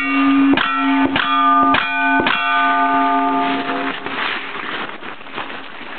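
A single-action revolver firing about five quick shots at steel targets, each hit setting the steel plates ringing with clear bell-like tones that overlap and die away about four seconds in.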